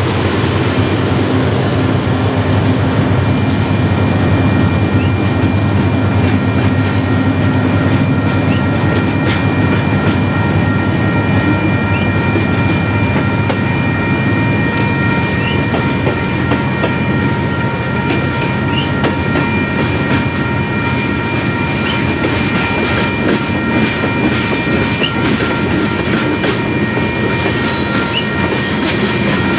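Freight train cars, tank cars and covered hoppers, rolling past close by: a steady rumble of wheels on rail with irregular clicks over the rail joints and a steady high-pitched whine over it.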